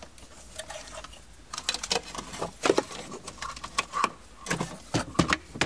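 Bundled wiring harness and plastic connectors rustling, scraping and clicking against the dash as a car stereo head unit is pushed into its dash opening. The handling noise thickens into a busy run of quick scrapes and taps about a second and a half in.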